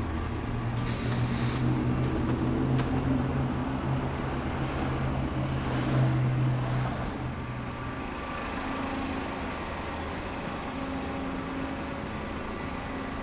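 A large road vehicle's engine running with a steady low hum, with a short hiss of released air, like an air brake, about a second in. The engine hum ends around seven to eight seconds in, leaving steady traffic noise.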